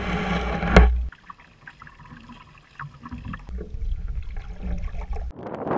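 Canoe paddling: a wooden paddle dipping and pulling through the water, with water trickling along the hull and wind rumbling on the camera microphone. There is one sharp knock just under a second in. Near the end a steady, louder rush of water and wind takes over.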